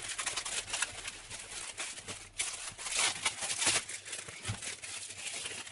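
Clear plastic wrapping film being peeled and pulled off a large Rubik's cube, crinkling and crackling in a fast, irregular run of small pops.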